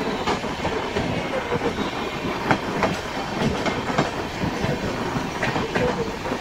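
Indian Railways LHB passenger coaches rolling past close by. A steady rumble of wheels on rail, broken by irregular sharp clicks as the wheels cross rail joints.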